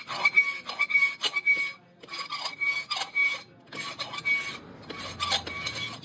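Hand-turned valve seat cutter scraping metal as it cuts the valve seat of a new Eicher NC cylinder head, in four bouts of rasping strokes with short pauses between them. A steady high-pitched ring rides on the first two bouts.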